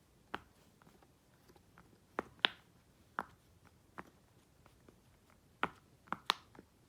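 Bubbles of a new, still-stiff silicone Pop It fidget toy being pressed one after another, each giving a short sharp pop. There are about eight pops at irregular spacing, two of them close together near the end.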